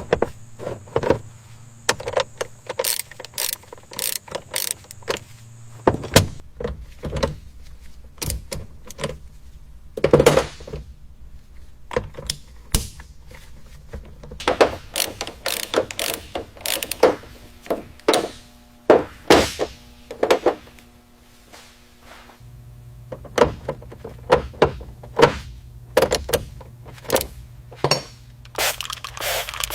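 Irregular knocks, clicks and thunks of hand work with tools and fitted parts on a car, with a low steady hum for the first few seconds and again from about two-thirds of the way through.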